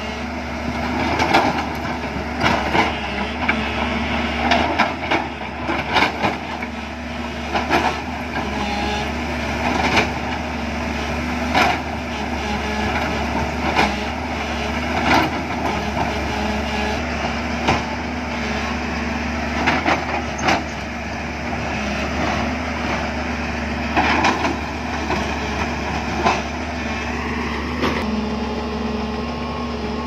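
JCB tracked excavator's diesel engine running steadily under load while it digs into an earth-and-rock hillside, with frequent irregular knocks and clunks as the bucket strikes soil and stone.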